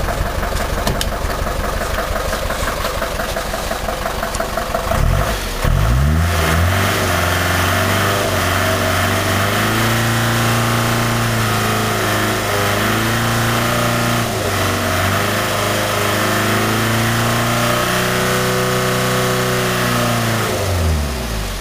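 Non-turbo diesel engine of a Ford Transit van, fitted with an on-demand hydrogen system, idling, then revved up about five seconds in and held at raised revs, wavering slightly a few times, before dropping back to idle near the end. The engine is being revved to see whether it makes exhaust smoke.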